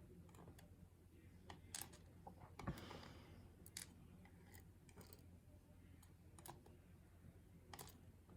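Faint, scattered clicks and taps of small metal lock parts (pins and tools) being handled, over a low steady hum.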